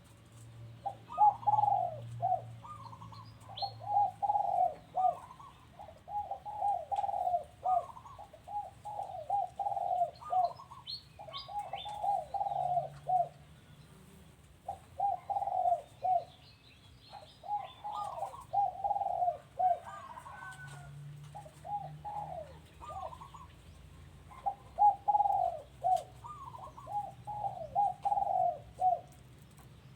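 Doves cooing: phrases of several short, quick coo notes repeated one after another with brief gaps, and a few faint higher chirps now and then.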